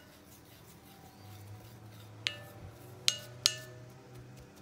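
Wooden stirring stick clinking against the side of a glass Pyrex measuring cup while stirring incense mix: three short taps that each ring briefly, the first about two seconds in and two more close together a second later.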